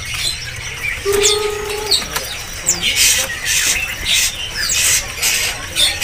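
Many caged songbirds chirping and calling, in quick short chirps throughout. A short steady low note comes about a second in, and a few brief hissy bursts come around the middle.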